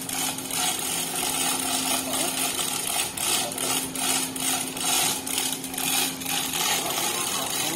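Irregular knocking and clatter, like hand tools striking and handling metal, over a steady hum that stops near the end.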